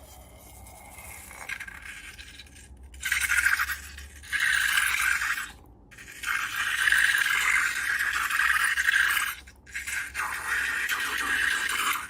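Slime being mixed and scraped around a bowl: several scraping strokes of one to three seconds each, with short breaks between them.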